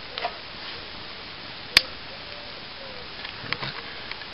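Wood fire burning in a small twig stove, drawing in the breeze, with light crackles and one sharp pop a little under two seconds in.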